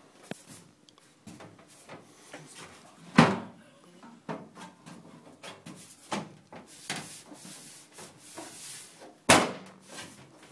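Scattered knocks and clunks, with two loud thumps: one about three seconds in and one near the end.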